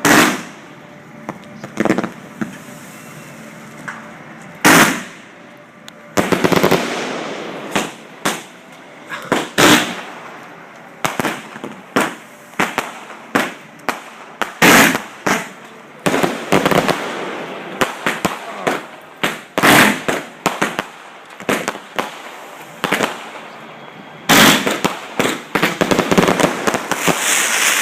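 Fireworks display heard from close to the launch site: loud, sharp bangs at irregular intervals, some single and some in quick clusters that run into longer stretches of noise.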